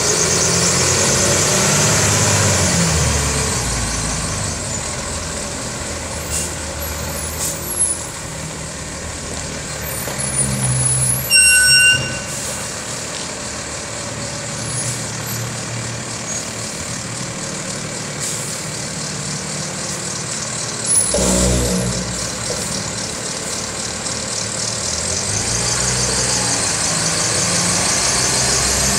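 Diesel engine of a 2008 Freightliner M2 106 rear-load garbage truck running as the truck drives past and turns on wet pavement, with tyre hiss loudest near the start and end. About 11 seconds in comes a short high-pitched squeal, and about 21 seconds in a brief hiss of air.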